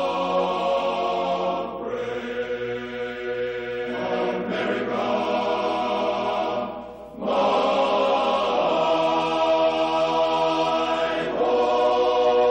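Choral music: voices holding long sustained chords that change every few seconds, with a brief drop in level about seven seconds in.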